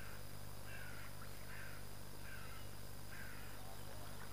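A bird calling about five times in a row, short harsh calls a little under a second apart, over a steady low hum.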